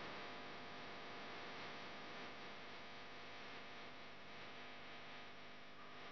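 Faint steady hum and hiss, with several steady tones running through it.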